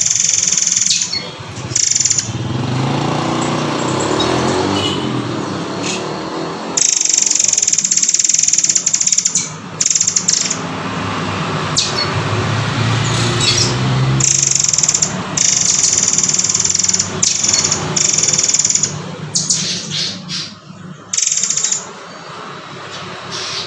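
Songbird singing in bursts of rapid, high-pitched chirping phrases, each lasting a second or two, with a low rumble underneath through the first half.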